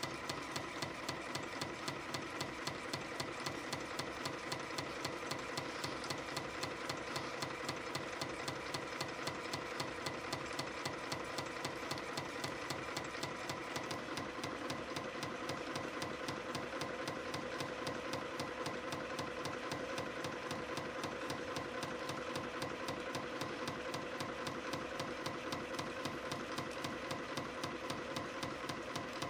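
CNC spring coiling machine (YHM CF-310) running steadily, coiling 0.6 mm wire into compression springs of varying outer diameter: a fast, even clatter of clicks over a steady whine of its servo drives.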